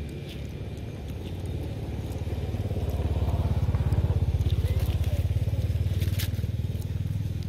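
A motor engine running with a low, fast-pulsing hum that grows louder about three seconds in and then eases off, as if a vehicle passes nearby, with a few light crackling clicks above it.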